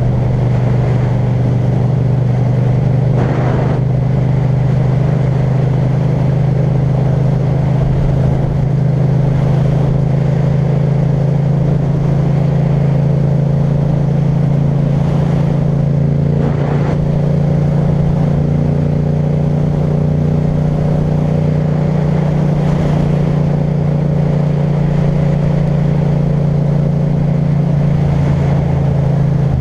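Yamaha MT-07's parallel-twin engine through an Akrapovic titanium exhaust, running at steady revs as the bike cruises. The engine note holds level throughout, with a couple of brief noisy rushes around 3 and 17 seconds in.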